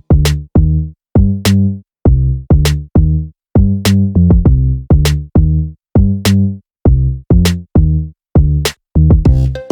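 Background music with an electronic drum-machine beat: short, punchy pitched notes in a steady rhythm, with crisp percussion hits.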